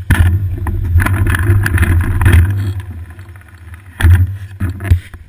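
Low rumbling and rattling from a camera in its housing on a bicycle seat post, with wind on the microphone, as the bike is moved and tilted. There are sharp knocks from the mount near the end.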